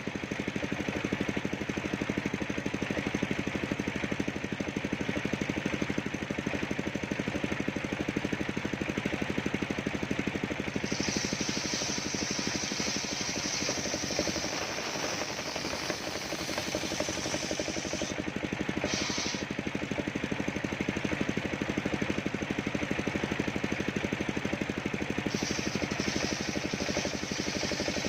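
Engine driving a home-built circular sawmill, running steadily with a fast, even firing beat. A higher hiss joins in for several seconds from about a third of the way in, again briefly, and near the end.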